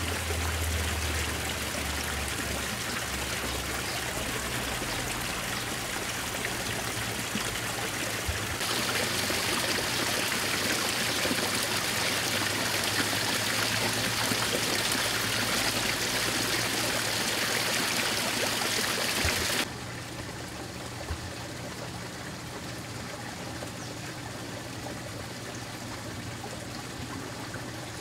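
Water trickling and running steadily into a garden pond. It grows louder about a third of the way through and drops off sharply about two-thirds through.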